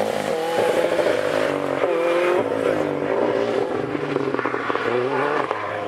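Rally car engine revving hard as the car drives the stage, its pitch climbing and dropping several times with the gear changes.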